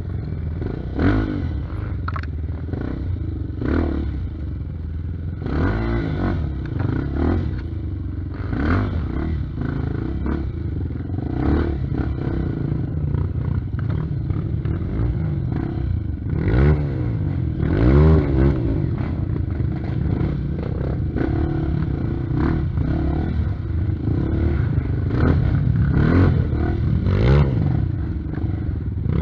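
Honda Tornado trail bike's single-cylinder four-stroke engine worked in short throttle blips at low speed over rocks and roots, with two longer rising revs a little past halfway. The bike's chassis clatters and knocks as it bumps over the trail.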